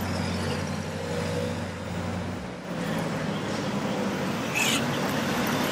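Ferrari Monza SP1's 6.5-litre V12 idling with a steady low drone that cuts out about halfway through, over street traffic noise. A brief high-pitched sound comes near the end.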